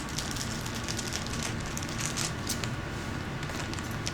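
Plastic bag of stones being handled, with soft crinkling and faint scattered clicks over a steady low background hum.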